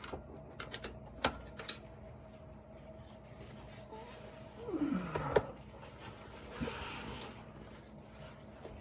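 Sharp metallic clicks and taps of hand tools working the servo cover and snap ring into a 4L60E transmission's servo bore. About five seconds in, a brief sound falling in pitch ends in another click.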